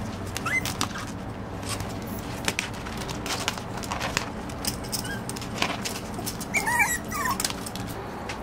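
Small puppies playing, giving a few short high-pitched whimpers and squeaks, the loudest cluster near the end, amid scattered clicks and scuffles from their scrambling.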